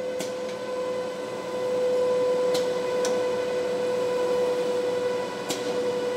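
HCI film slitter rewinder running: a steady whine at one pitch over even machine noise, growing a little louder about a second and a half in, with a few light clicks.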